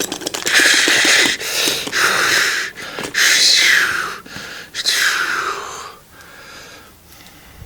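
A person's voice making loud, breathy hissing and blowing sounds, several in a row of about a second each, some sweeping in pitch, then dying down near the end.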